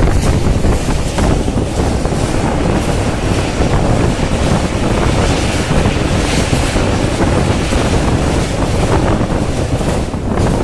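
Passenger train coach of the 11302 Udyan Express running at speed: a steady rumble of wheels on rails mixed with rushing wind buffeting the microphone.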